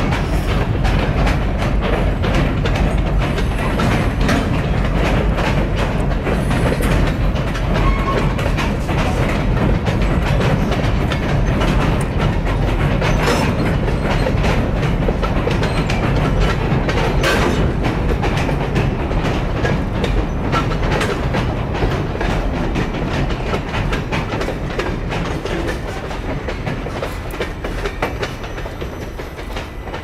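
Freight cars of a Canadian National train rolling across a steel deck-girder railway bridge: a steady heavy rumble with continual wheel clicks and clanks, easing slightly near the end.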